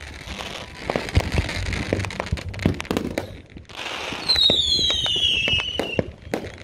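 Consumer fireworks and firecrackers going off in a quick, irregular string of cracks and pops, with a long high whistle falling in pitch about four seconds in.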